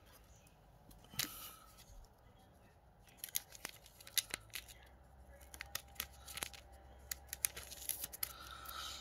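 Faint rustling and scattered light clicks of plastic card sleeves as trading cards are handled and slid into them.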